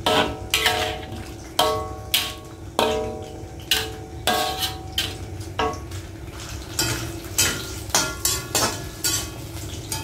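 A metal spatula stirring in woks, knocking and scraping against the thin metal, with each knock ringing briefly. There are about fifteen irregular knocks.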